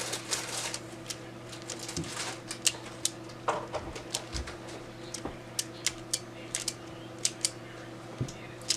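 Plastic Pyraminx puzzle being twisted by hand, its pieces clicking in quick, irregular turns over a faint steady hum.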